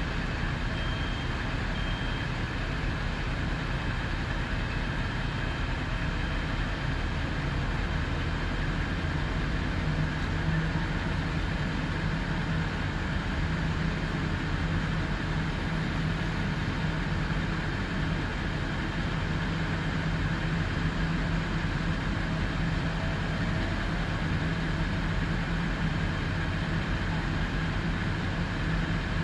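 Fire apparatus engines running steadily at the fire scene: a continuous low engine hum with an even background rush.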